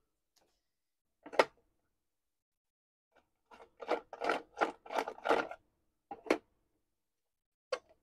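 A screwdriver working the screws out of a plastic control-box cover: a sharp click about a second in, then a run of short rasping turns, about three a second, and another click after them.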